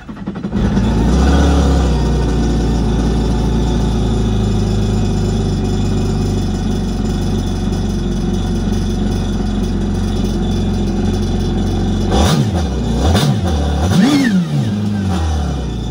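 Kawasaki Ultra 310 jet ski's supercharged 1.5-litre four-cylinder engine starting, idling steadily, then given three quick throttle blips near the end. This is the idle-and-rev step that initializes a newly fitted tuned ECU.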